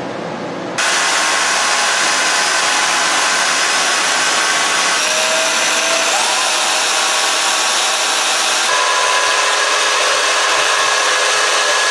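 Corded half-inch Skil electric drill powering a homemade lathe, its motor running steadily at full speed. It starts abruptly about a second in, and the sound changes slightly twice.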